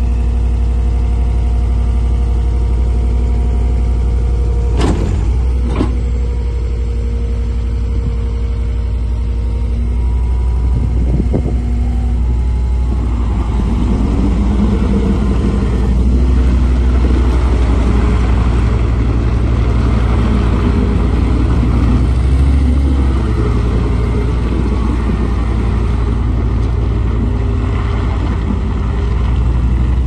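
The diesel engine of a John Deere 333D compact track loader running steadily, with two sharp knocks about five seconds in. From about thirteen seconds in, a louder rattling noise joins the engine as the loader drives and turns on its rubber tracks.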